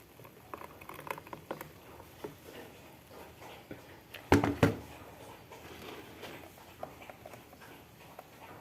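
Blended mastruz-leaf and milk drink being strained through a kitchen sieve: faint scattered taps and patter of liquid and utensils, with two sharp knocks about a quarter second apart a little over four seconds in.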